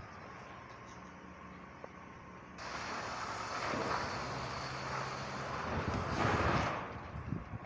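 2003 Honda CR-V's four-cylinder engine running while driven off-road. About two and a half seconds in, a loud rushing noise sets in suddenly over it, swells, and drops away near the end.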